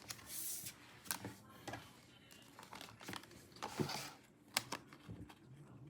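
Album packaging being handled during an unboxing: short rustles of paper or plastic with scattered light clicks and taps, the loudest swishes about half a second in and near the four-second mark.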